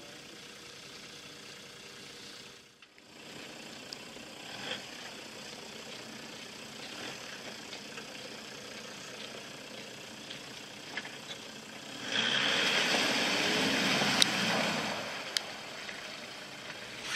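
Toyota Land Cruiser 100 stuck on a muddy creek bank, engine running quietly, then revving hard for about three seconds near the end as it tries to climb out, before easing off again.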